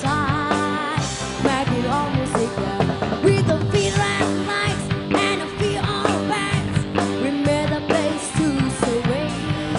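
Live rock band playing: a woman singing over electric guitars and drums, with a wavering held note at the start.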